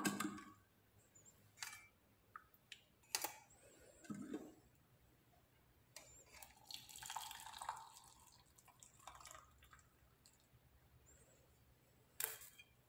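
Hot kehwa tea being poured from a steel saucepan through a metal tea strainer into cups: faint dripping and a trickle of liquid for a couple of seconds midway, among light clinks and knocks of the pan, strainer and cups.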